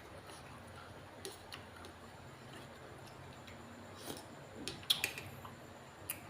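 A few scattered light clicks and taps, the loudest cluster about five seconds in, over a faint steady low hum.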